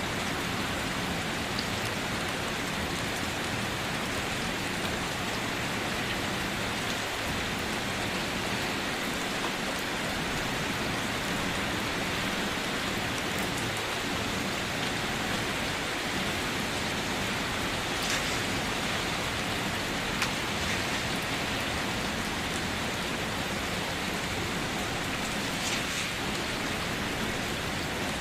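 Steady rain pattering on a car's roof and body, heard from inside the car, with now and then a sharper single drop tap.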